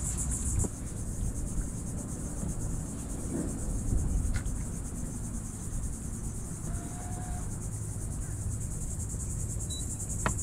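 Insects buzzing steadily in a high, fast-pulsing drone that drops off suddenly in under a second, over a low wind rumble on the microphone, with a few light clicks.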